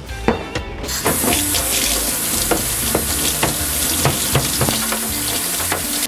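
Tap water running into a sink, starting about a second in, with knocks and clunks of a metal typewriter part being handled and scrubbed under it.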